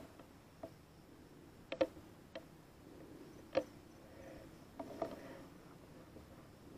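A few light, sharp clicks and snaps, about seven of them, at irregular intervals, with two close together about two seconds in, over a faint steady background hiss.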